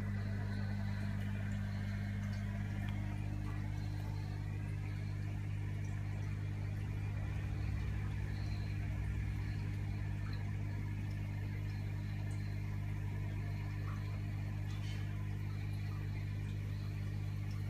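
Aquarium equipment humming steadily, a low electrical drone with a light hiss over it; the upper note of the hum changes about three seconds in.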